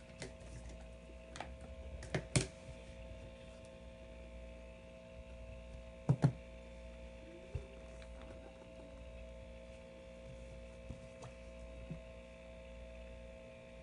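Steady electrical hum with a few scattered light clicks and taps, the sharpest about two seconds in and about six seconds in.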